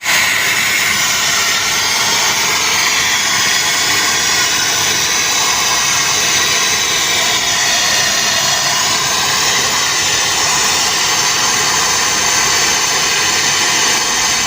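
Steady, loud rushing hiss of air from running HVAC equipment, unchanging throughout.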